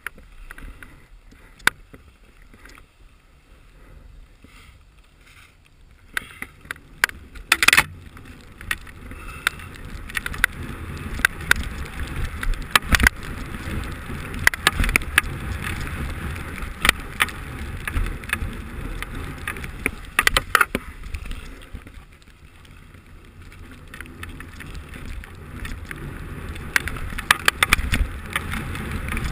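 Skis running over snow, a steady hiss with a low rumble and scattered sharp clicks and knocks. It is quieter for the first several seconds, grows louder about a quarter of the way in, eases off about two-thirds through, then builds again.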